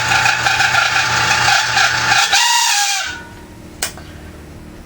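Vintage 1950s Fasco exhaust fan running loudly, its motor squealing from bearings still dry after oiling. The squeal falls in pitch and the noise drops off abruptly about three seconds in, followed by a single click.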